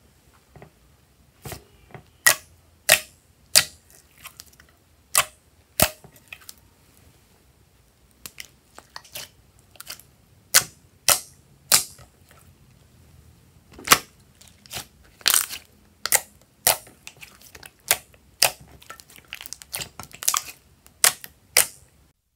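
Glossy slime being pressed and squeezed by hand, giving sharp, irregular pops and clicks as trapped air bursts out, some two dozen of them, the loudest about two-thirds of the way through.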